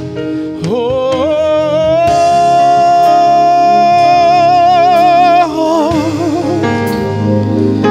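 Live gospel worship music: a singer slides up into one long note held with vibrato for about five seconds over sustained instrumental backing, then drops into a wavering lower line.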